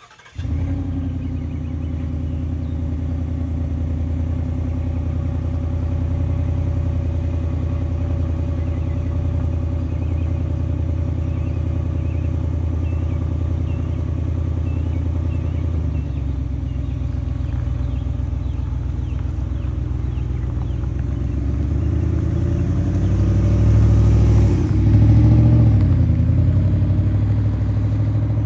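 2024 Ford F-150's 5.0-litre Coyote V8 running steadily with a deep drone, growing louder about three-quarters of the way through and then easing back slightly.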